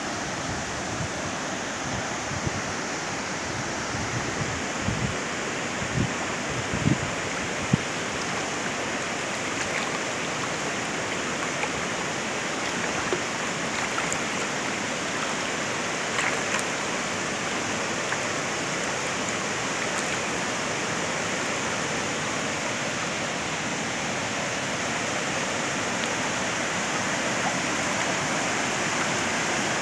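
Floodwater flowing fast, a steady rush of water noise, with a few low thumps in the first eight seconds.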